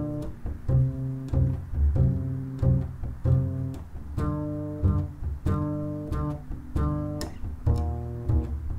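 Background music: a low string instrument playing a slow, even line of plucked notes, a new note about every two-thirds of a second.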